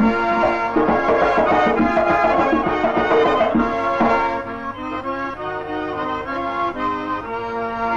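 Instrumental Kabardian folk dance music, a lively melody of held notes that drops somewhat in loudness about halfway through.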